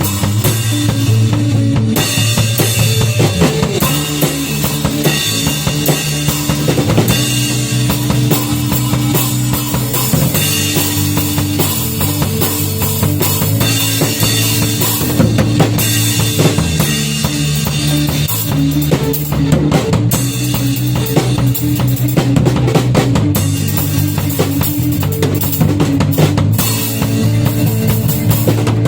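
Band music driven by a drum kit, with kick drum, snare and rimshots over sustained bass notes that change every couple of seconds.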